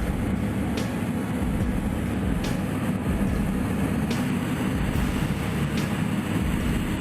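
Heavy vehicle engine running steadily under load, with a faint click about every second and a half.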